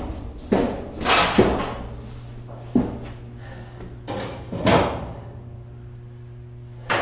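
Metal clanks and knocks from 16-inch powder cans being handled in their racks, about half a dozen sharp strikes, some ringing briefly, over a steady low hum.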